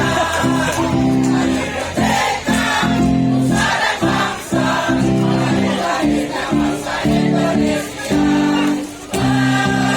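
A choir singing: held notes in several voices, sung in phrases with short breaks between them.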